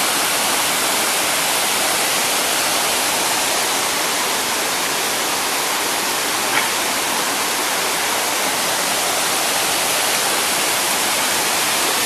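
Steady rush of a mountain creek pouring through a rocky cascade and waterfall, an even hiss of white water that keeps the same level throughout.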